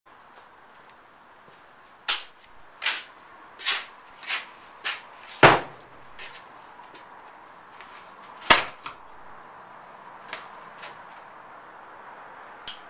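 A series of sharp wooden knocks: six in quick succession, the last the loudest, then another loud knock a few seconds later and a few fainter ones.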